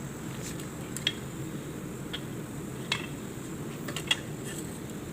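Light metallic clicks of hand tools against engine parts, about five spaced apart, over a steady low hum.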